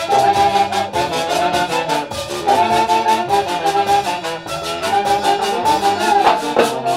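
Live festival orchestra playing, with brass carrying a melody over a steady drum beat.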